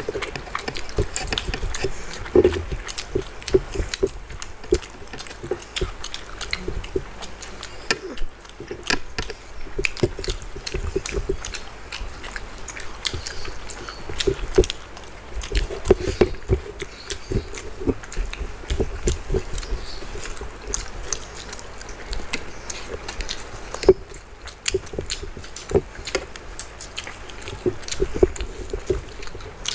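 Close-miked eating: two people chewing with lip smacks and wet mouth clicks while their fingers mix rice and curry, an irregular stream of small clicks and squelches.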